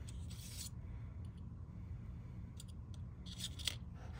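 Plastic katana being slid into the plastic scabbard on the back of a NECA Leonardo action figure. There is a short scraping rub near the start, then a few light plastic ticks and taps as the sword is seated and the figure is handled.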